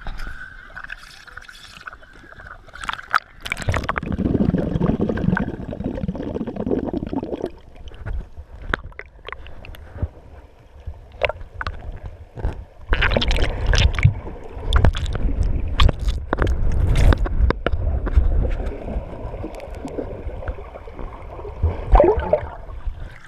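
Sea water sloshing and gurgling around a waterproof camera held at and just below the surface, with muffled underwater rumbling and scattered clicks. It is louder around four to seven seconds in and again from about thirteen to nineteen seconds.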